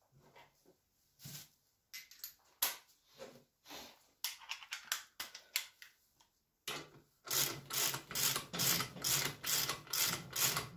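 Metal hand tools and small valve-train parts clicking and knocking irregularly on a cylinder head being stripped. From about seven seconds in, a fast, even mechanical clicking at about three strokes a second.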